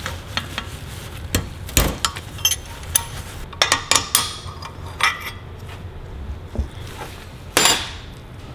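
Metal tools and small engine parts clinking and knocking against each other and the steel workbench during engine teardown: scattered light clicks and knocks, with a louder knock near the end.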